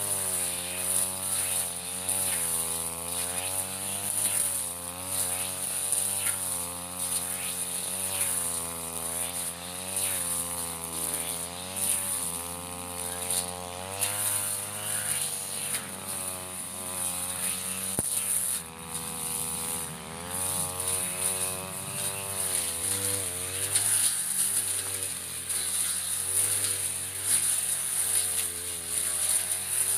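Backpack brush cutter's small engine running hard. Its pitch keeps dipping and recovering every second or two as the cutting head sweeps through grass.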